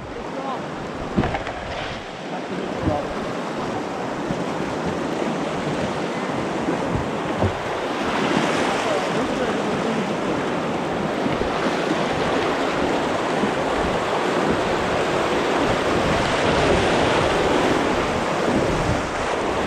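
Rushing white water of a river rapid, a dense steady roar that grows louder about eight seconds in as the canoe runs into the waves, with wind buffeting the microphone.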